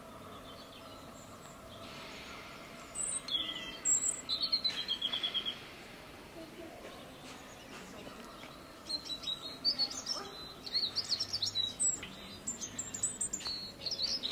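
Small birds chirping and twittering in quick high chirps and short trills, in two bouts, the second longer, over a low room hum.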